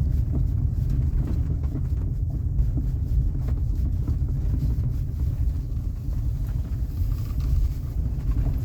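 Cabin road noise from a Chery Tiggo 8 Pro Max driving over rough road: a steady low rumble with scattered short knocks, which the owner takes for a knocking steering rack.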